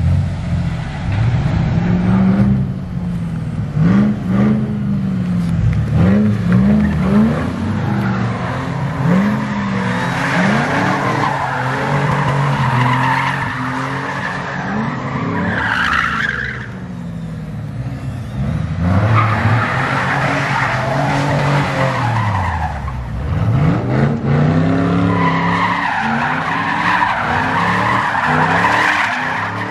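Chevrolet pickup truck doing donuts: the engine revs up and falls back again and again while the tires squeal and skid on the asphalt.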